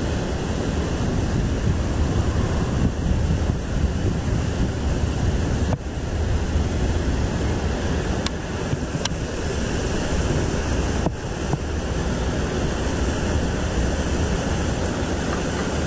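Wind buffeting the action camera's microphone in a steady low rumble.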